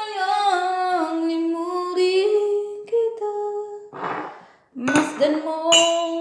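A woman singing unaccompanied, holding long notes that step slowly up and down. The singing breaks for a short breathy hiss about four seconds in, then goes on.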